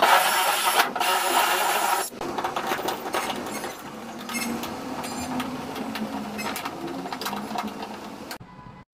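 Cordless drill running at full speed, drilling into a wall, loud for about two seconds with a brief break about a second in. It then runs more quietly and unevenly, driving screws to fix a plastic hook in place.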